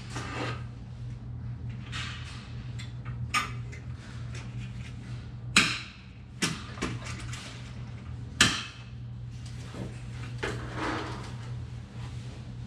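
A metal vertical-blind headrail being handled and pushed up into its mounting brackets: scraping and rattling with several sharp clicks and knocks, the two loudest a few seconds apart in the middle.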